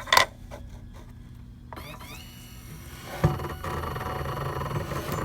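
X-axis drive motor of a CNC machine running. A faint rising whine comes about two seconds in, then a sudden knock and a louder rough buzzing about three seconds in: the axis is binding up under only slight resistance.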